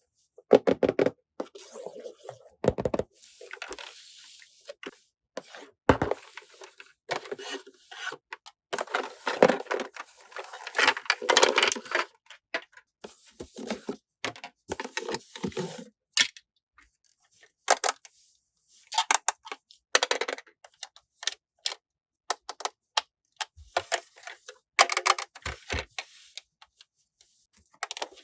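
Plastic toy pieces and packaging being handled: irregular clicks, taps and rustles, with a busier stretch of rattling and rustling near the middle.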